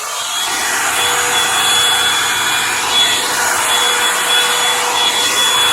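Revlon One-Step hair dryer brush switched on to its high setting: the rush of blown air swells up over about the first second, then runs steadily with a thin fan whine.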